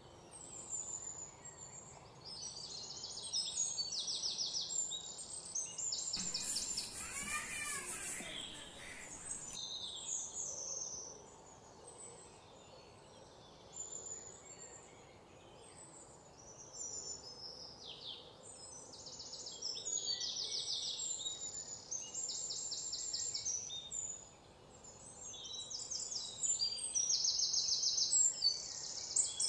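Wild birds chirping and trilling in repeated short, high-pitched bursts over a faint outdoor background. About six seconds in, a louder, buzzier call sounds for about three seconds.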